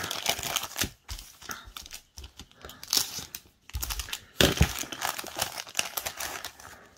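Thin clear plastic bag crinkling and rustling in the hands, in irregular bursts, as a clear plastic sprue is slid out of it, with a soft thump about four and a half seconds in.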